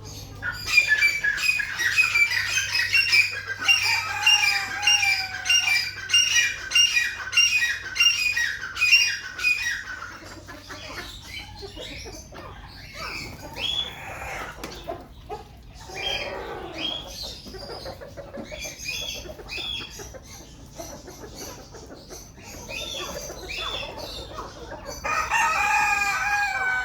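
Golden Japanese bantam chickens calling: a fast run of loud, repeated clucking calls, about two a second, for the first ten seconds or so. Softer scattered calls follow, and one longer held call comes near the end.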